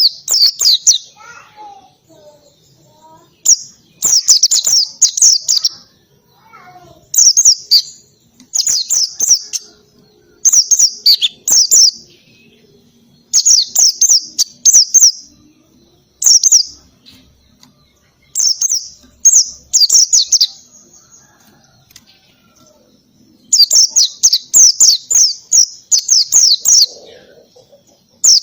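White-eye (pleci) singing in repeated bursts of rapid, sharp, very high chirping notes, each burst a second or two long with short pauses between: the fast canary-like 'shooting' song style.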